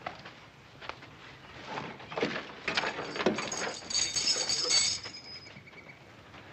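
A few sharp knocks, then a shackled prisoner's chains clinking and jangling for about two seconds midway.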